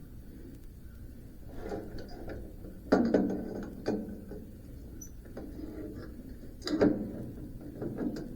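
Irregular mechanical clicks and clunks of metal parts being worked by hand on a band sawmill's wheel and bearing assembly, with three louder knocks about three, four and seven seconds in.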